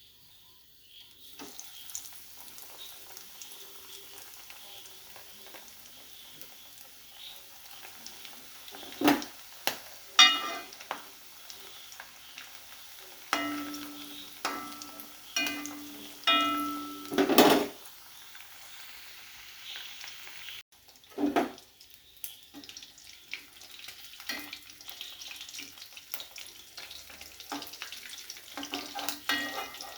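Oats-coated chicken pieces deep-frying in coconut oil, a steady sizzle. Around the middle come a series of sharp metallic clanks, some with a ringing tone, as a utensil strikes the frying pan.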